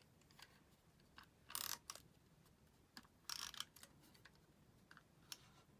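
Paper cardstock pieces being handled, with two brief rustles about a second and a half and three seconds in and a light click near the end; otherwise near silence.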